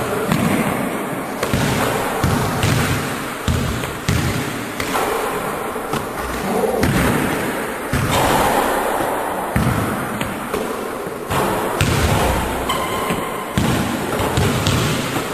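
Basketballs thudding and bouncing on a hardwood gym floor, with repeated irregular impacts echoing in a large hall.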